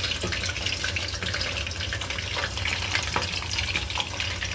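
Chicken pieces frying in hot oil in a wok: a steady sizzle with scattered small crackles and pops.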